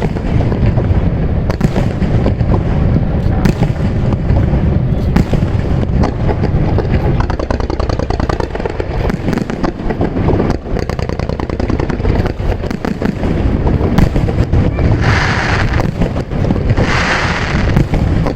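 Aerial fireworks display: shells bursting in a fast, unbroken run of booms, with crackling between them and a few bright hissing crackles near the end.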